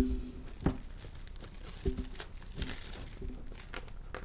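Clear plastic shrink-wrap being pulled off a cardboard model-kit box, crinkling and crackling, with a few louder snaps in the first two seconds.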